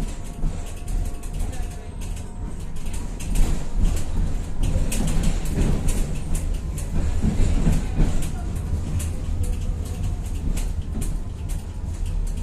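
Tatra-Yug K1M tram in motion, heard from inside the car: a steady low rumble of running gear and wheels on rails, with frequent clicks and rattles, growing louder in the middle.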